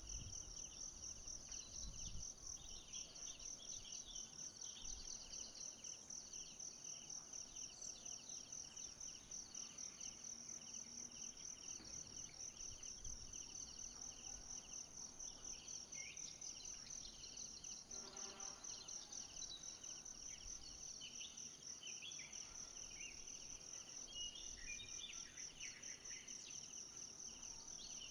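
Forest insect chorus: a steady, fast-pulsing high trill with a second, lower pulsing call beneath it, and scattered short chirps, more of them in the second half.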